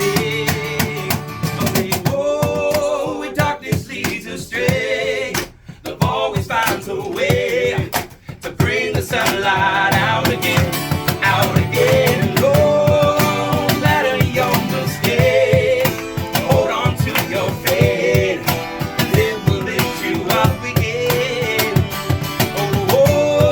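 Live band playing a song: guitar and singing, with the music dropping briefly twice, around six and eight seconds in.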